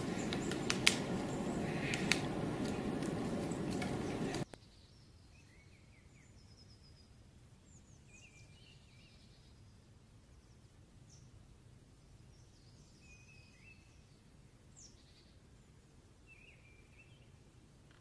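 Woodpecker tapping on bark: two sharp taps over a loud steady hiss, which cuts off suddenly after about four seconds. Then faint, scattered short chirps and twitters of a European goldfinch.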